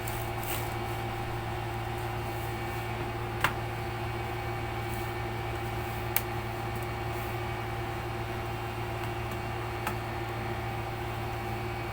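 Steady mechanical hum, with a few sharp clicks: one about three and a half seconds in, one about six seconds in, and one near ten seconds.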